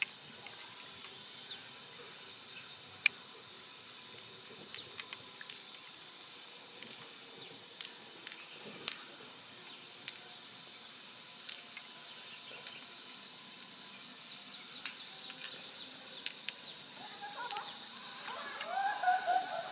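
Insects singing in one steady high tone, with scattered sharp clicks as pearls are pulled from an open freshwater mussel and knock against each other and the shell. A run of quick high chirps comes in after about fourteen seconds.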